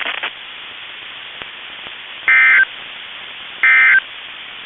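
Two short, loud bursts of NOAA Weather Radio SAME digital data, the end-of-message code that closes the weekly test broadcast, each about a third of a second long and a little over a second apart, over steady radio static.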